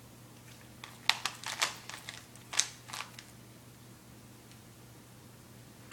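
Rubik's cube being twisted by hand: a quick run of plastic clicks and clacks from the turning layers in the first half, then only a faint steady hum.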